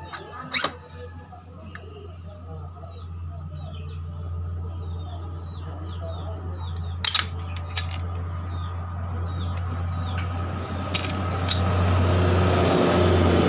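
Metal clinks and clanks as scooter CVT parts (pulley, clutch and cover) are handled and set down, with one sharp clank about halfway. A passing motor vehicle's noise grows louder toward the end, over a steady low hum.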